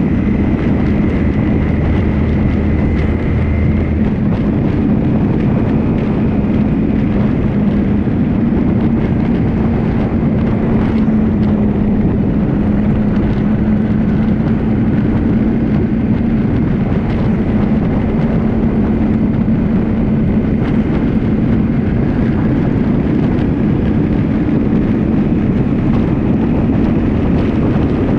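Vehicle engine running steadily at an even cruising speed, with road and wind noise on the microphone.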